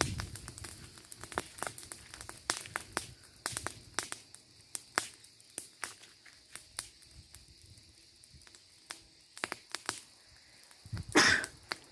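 Fire crackling, with irregular sharp pops and snaps throughout, and one louder burst of crackle near the end.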